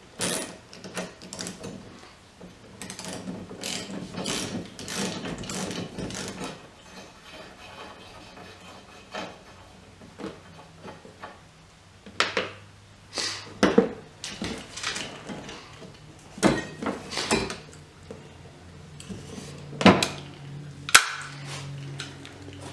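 A socket ratchet clicking in quick runs as the 15mm nut holding a wiper arm is turned loose, followed by scattered clicks and several sharp metal knocks as the nut and arm are worked off.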